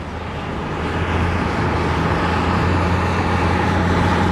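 LAV III armoured vehicle's diesel engine running as it drives past, a steady low drone over a rushing noise that grows louder through the first second and then holds steady.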